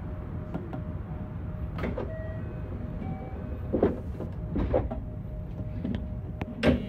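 JR West 321 series electric train running, heard from inside: a steady low rumble with a faint steady tone, and four sharp knocks a second or two apart, the loudest near the end.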